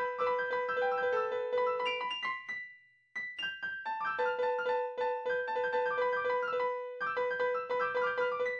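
Piano music: a quick, even run of repeated notes that breaks off for about half a second near three seconds in, then carries on.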